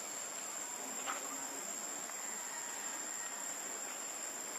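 Steady high-pitched drone of insects, crickets or cicadas, over an even outdoor background hiss.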